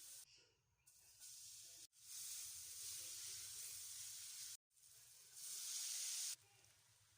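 Food sizzling and hissing in a hot pan, heard in several short stretches that cut in and out abruptly, with the loudest hiss about five and a half to six and a half seconds in.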